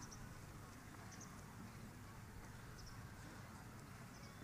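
Near silence: a faint outdoor background with a low hum and a few faint, short, high chirps.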